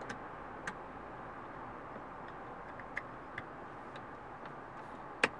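Small hard-plastic clicks and taps as a phone-dock bracket is handled and fitted into a car's plastic centre console: a few faint clicks, then one sharper click near the end, over a low steady hiss.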